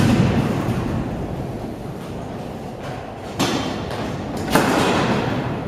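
Kick scooter wheels rolling over a concrete skate bowl, a steady rumble, with two sudden knocks of scooters hitting the concrete about three and a half and four and a half seconds in.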